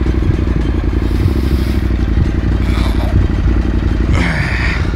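KTM 790 Adventure Rally's parallel-twin engine idling steadily.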